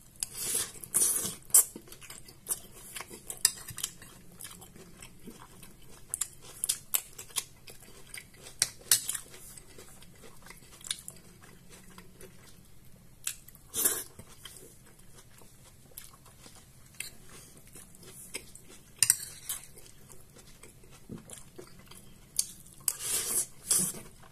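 A metal spoon clinking and scraping on a ceramic plate, in scattered sharp clicks, between spells of chewing close to the microphone.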